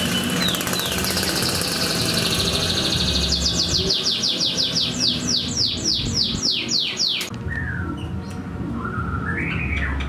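Songbird calls: a few short falling whistles, a buzzy high trill, then a rapid run of steeply falling high notes, about four a second, that stops abruptly about seven seconds in. A few lower warbled notes follow near the end, over a steady low rumble.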